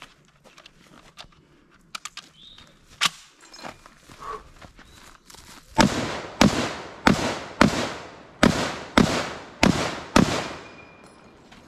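A few handling clicks as the rifle is readied, then about six seconds in, eight M1 Garand rifle shots fired at a steady pace of about one every half second. Just after the last shot comes a faint ping: the emptied en-bloc clip being ejected.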